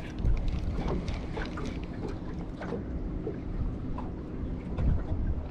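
Outdoor wind rumble on the microphone, with scattered small clicks and knocks throughout.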